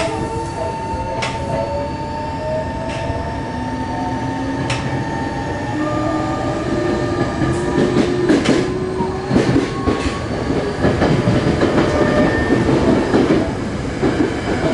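Tokyo Metro 03 series chopper-controlled subway car pulling away and accelerating, heard from inside the car: the traction motors and gears whine in several tones that rise slowly in pitch with speed. Beneath them the running rumble grows louder, with sharp clicks from the wheels crossing rail joints.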